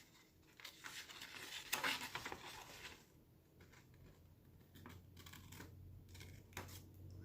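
Scissors cutting through a thin paper calendar page, faint, with paper rustling: a run of snips and crinkles in the first two seconds, then softer scattered paper sounds.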